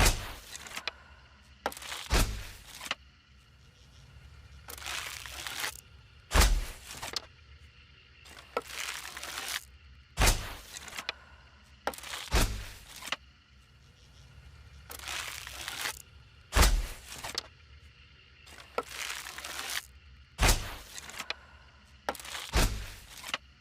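A hunting bow being shot over and over: about eight sharp cracks, each with a low thump, several of them coming after a longer swishing sound of about a second.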